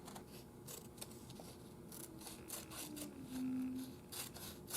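Faint rubbing and light scraping from small things being handled at a workbench, likely the paper dial strip being fitted and checked. A short low hum sounds near the middle and drops in pitch once.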